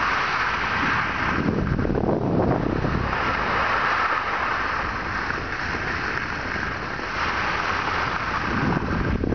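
Wind buffeting the microphone on a downhill ski run, with the hiss of skis scraping over groomed snow that swells and fades with each turn.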